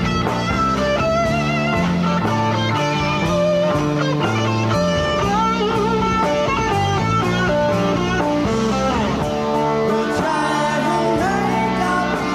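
Rock band playing an instrumental passage live: electric guitar lead with bent, wavering notes over a moving bass line and steady cymbal ticks.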